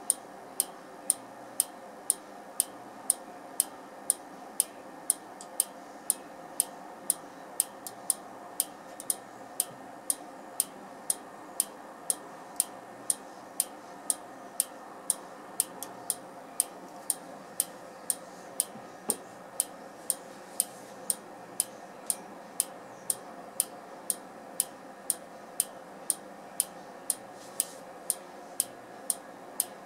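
Z700U trigger-tube clock ticking with sharp, even clicks about twice a second, over a steady electrical hum.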